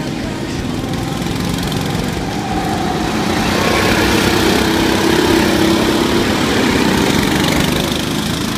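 Several small-engine go-karts running around a track. The engine noise swells as two karts pass close, loudest a little past halfway, then eases as they move away.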